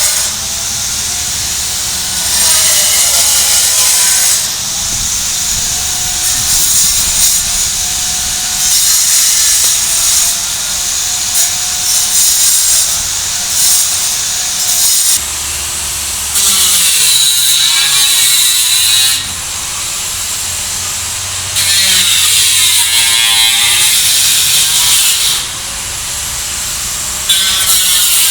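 Power tool running in repeated bursts of one to three seconds with short pauses between them. The motor's pitch sags and recovers as it cuts or drives into the work.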